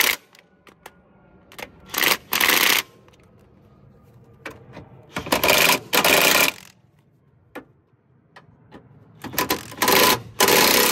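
Impact wrench running down the engine mount bolts in three rattling bursts of a second or more each, with small tool clicks between them.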